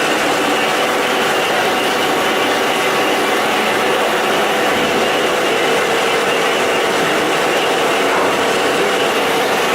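СПБ-8-2 pulpwood-processing sawing machine running steadily: a continuous mechanical noise with a few steady hums and no distinct knocks.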